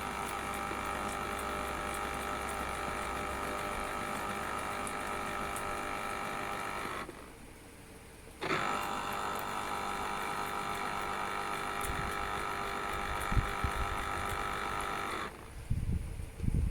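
Electric citrus juicer's motor running in two stretches: about seven seconds, a pause of a second and a half, then about seven seconds more before it stops. A few low knocks come in the second half.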